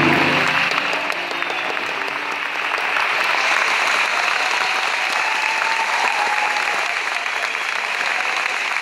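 Audience applauding steadily in a concert hall, just after the last notes of a violin piece die away in the first half-second.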